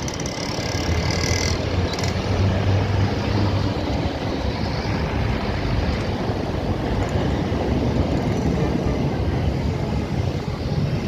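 Intercity bus engine running as the bus passes close by, over steady road traffic noise, with a low hum strongest during the first few seconds.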